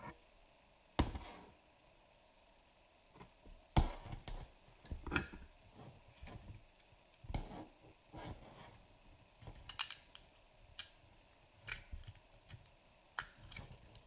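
Handling noise of 3D-printed plastic housing parts and a USB-C cable: scattered light knocks, taps and rubbing, with the sharpest knocks about a second in and near four seconds.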